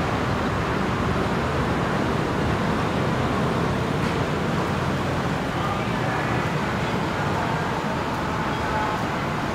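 Steady city street traffic: a constant wash of road vehicle noise, with faint snatches of voices mixed in.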